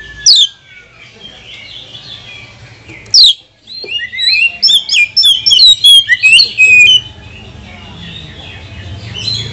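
Oriental magpie-robin singing: two loud down-slurred whistles, then a rapid run of sharp, chattering notes for about three seconds, followed by softer twittering.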